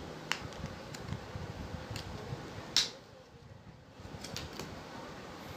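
Clear plastic blister pack handled and pried open by hand to free a USB pen drive: a few small clicks and crackles of the plastic, with one louder snap near three seconds in, over a steady low background hum.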